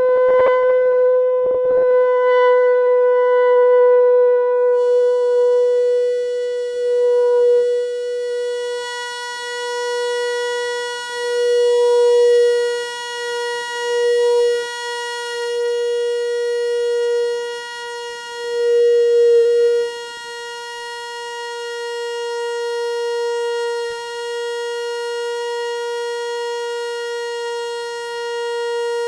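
A K176LA7 (CD4011-type NAND gate) chip oscillator giving a steady, buzzy electronic tone near 500 Hz, rich in overtones and processed with software effects. Its loudness swells and dips several times in the middle, then it holds level.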